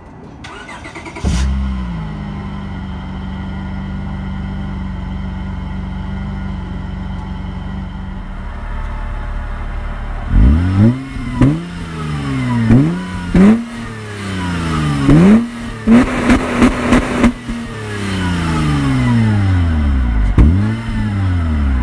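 2005 Honda Pilot's 3.5-litre V6 running with its muffler cut off: it cold-starts about a second in and settles into a steady fast idle. From about ten seconds in it is revved again and again, the pitch rising and falling with each blip, with a brief run of sharp clicks around sixteen seconds in.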